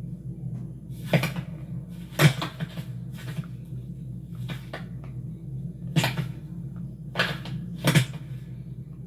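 A steady low hum with about seven short, sharp knocks or clatters at uneven intervals, the loudest about two seconds in.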